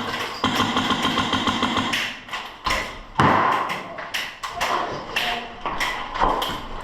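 Airsoft guns firing in rapid bursts, with a sharp crack-like thud about three seconds in and scattered BB hits and taps afterwards.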